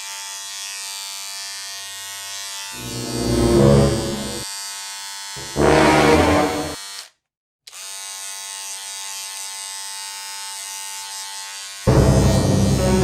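Electric hair trimmer buzzing steadily while lining up a hairline. Two louder bursts of noise break in, around three and six seconds in, the sound cuts out completely for a moment just after seven seconds, and loud music comes in near the end.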